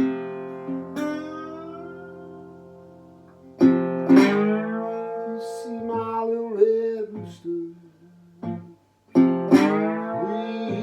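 Acoustic guitar playing a blues instrumental break. Chords are struck and left to ring, then single notes glide up and down in pitch between them.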